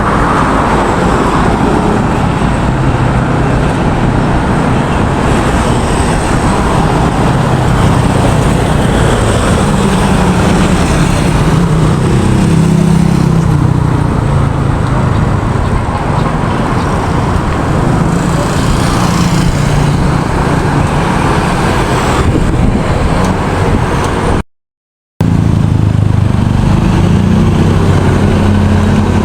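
Road traffic noise: vehicle engines running with a steady rushing of tyres and wind. The sound cuts out for under a second near the end, then resumes.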